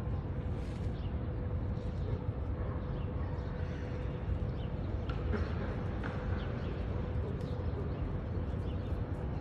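Outdoor street-side park ambience: a steady low rumble with a faint steady hum and a few faint high chirps.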